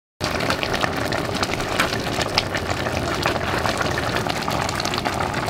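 Pig's foot and dried deer stew boiling hard in an open aluminium pressure cooker pot, with a steady bubbling full of small irregular pops. It starts abruptly just after the start.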